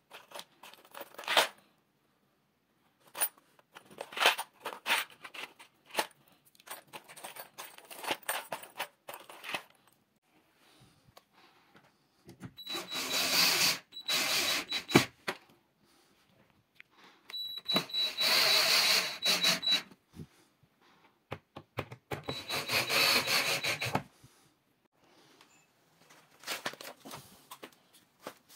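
Cordless drill-driver driving screws into a wardrobe panel in three runs of two to three seconds each, with a steady motor whine. Before it, loose screws and metal fittings clatter as they are picked out of a hardware box.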